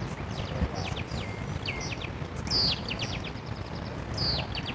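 Birds chirping: a quick series of short, downward-sweeping calls repeating several times a second, with two louder calls about halfway through and near the end. A steady low rumble runs underneath.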